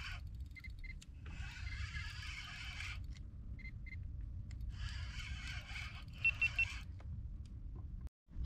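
Three quick high electronic beeps about six seconds in, the loudest sound. Under them run a steady low rumble and two stretches of hiss, with a few fainter short paired tones earlier.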